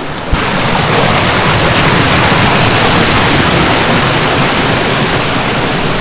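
Steady rush of water from a waterfall, starting abruptly just after the start.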